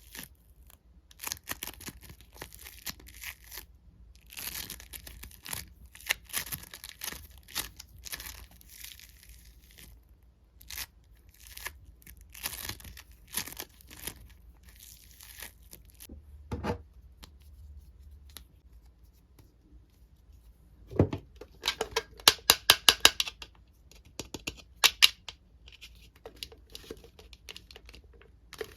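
Hands handling toys with crinkling, tearing noises in irregular spells. A quick rattling run of sharp clicks comes about three quarters of the way through.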